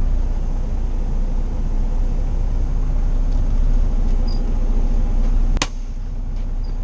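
Semi truck's diesel engine running, heard from inside the cab as the truck is manoeuvred into a parking spot. There is a single sharp click about five and a half seconds in, after which the low engine drone eases slightly.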